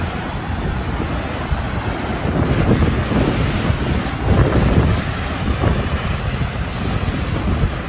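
Waterfall in full flow, a steady rush of falling water, with wind buffeting the microphone in uneven low gusts.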